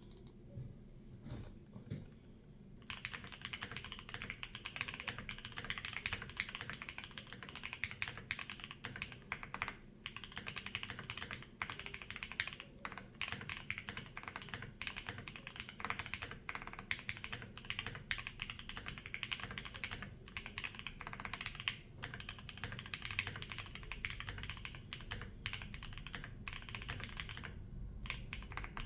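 Typing on a Monsgeek M1W mechanical keyboard with Gateron EF Greyish switches, an FR4 plate, GeekArk keycaps and stock stabilizers. Fast, continuous keystrokes begin about three seconds in, with a few brief pauses.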